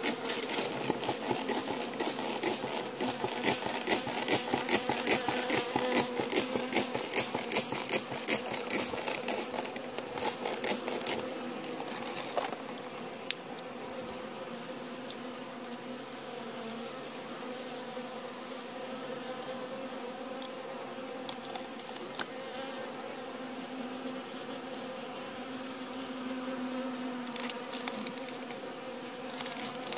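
A honey bee colony buzzing in an open hive: a steady, even hum. A rapid crackle of clicks runs over it for about the first ten seconds.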